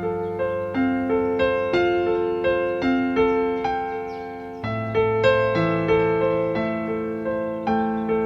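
Piano music: a gentle melody of single struck notes, about three a second, each ringing and fading over sustained lower notes, with a change in the bass about halfway through.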